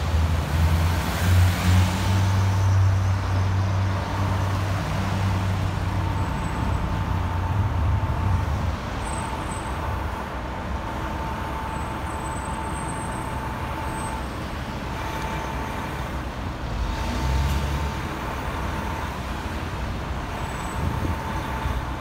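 Fire engine's diesel running as it rolls out of the station bay, mixed with the rumble of traffic passing close by; the rumble is heavy for the first several seconds, eases, and swells again briefly later. A steady high tone sounds on and off throughout.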